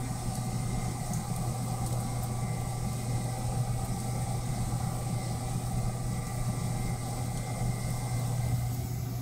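A steady low mechanical hum, like a motor or engine running without change, over a haze of background noise.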